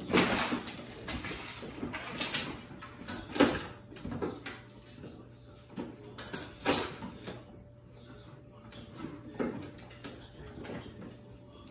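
Cavapoo puppies wrestling and playing with toys: irregular bursts of scuffling and play noise, loudest just after the start and about three and a half seconds in.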